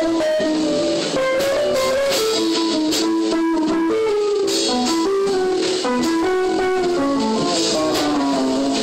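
Guitar-led music: a stepping melody of plucked guitar notes over light percussion, at a steady level.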